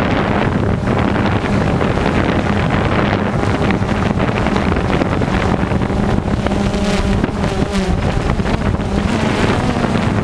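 DJI Phantom 2 quadcopter's motors and propellers droning steadily in flight, a low hum under heavy wind buffeting on the onboard microphone.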